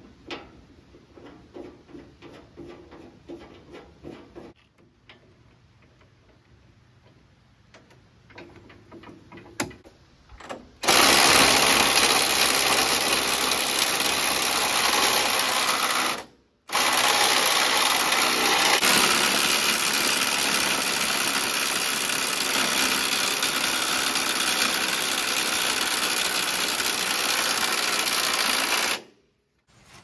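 Light clicks and handling noise, then a loud, steady mechanical whir from a motor-driven tool that breaks off abruptly for a moment and cuts off near the end.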